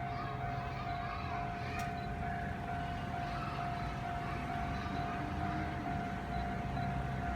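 Railway level-crossing warning bell ringing, a single-pitched ding repeating in a steady rhythm: the signal that a train is approaching the crossing.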